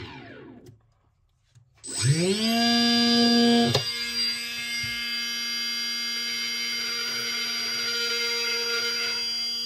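Homemade drill's brushless DC motor winding down to a stop, then after about a second of silence spinning back up to a steady high whine. A click comes just before the four-second mark, and the motor runs on steadily, a little lower in pitch and quieter.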